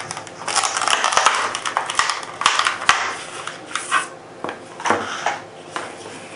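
Clear plastic blister pack being pulled open and handled: crinkling and crackling with a few sharp snaps in the first three seconds, then quieter rustling as the plastic shell and grip panels are set down.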